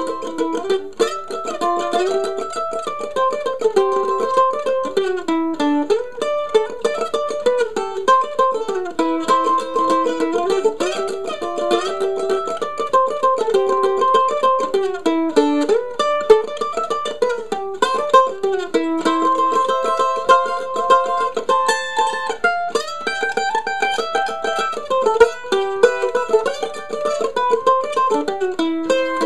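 Gilchrist Model 1 mandolin played solo, a quick, even stream of picked melody notes running up and down an old-time fiddle tune.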